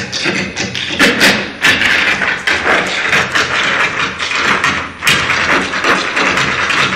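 Irish dance troupe's hard shoes tapping and stamping in unison on the stage: a fast run of sharp clicks and thuds over the show's music.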